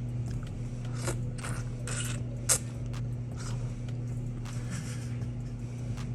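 Eating balut: close-up chewing and biting with scattered short crunches and clicks, and one sharp crack about two and a half seconds in, over a steady low hum.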